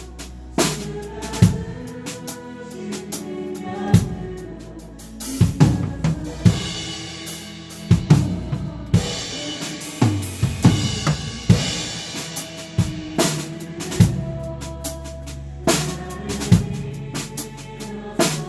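Drum kit played along with a worship band: kick and snare hits over sustained keyboard and bass notes, with cymbal washes through the middle.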